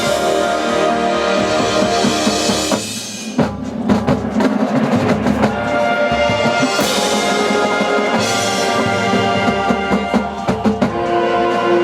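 High school marching band playing its field show: the winds hold sustained chords, broken about three seconds in by a passage of drum hits. The chords return a few seconds later, with another short burst of drumming near the end.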